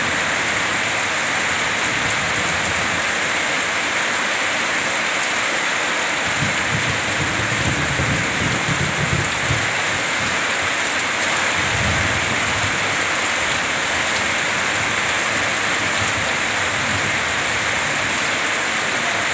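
Heavy rain falling steadily on the ground and pouring off a roof edge, a dense continuous hiss. Low thunder rumbles under it for a few seconds starting about six seconds in, and again briefly around twelve seconds.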